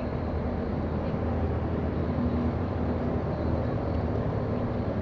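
An engine running steadily: a low, even drone with a steady hum and no changes in pitch.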